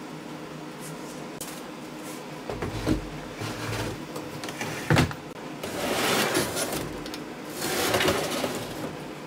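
Retractable metal-topped welding table sliding along its drawer guides under the cabinet top: a few clicks, a sharp knock about five seconds in, then two rushing slides.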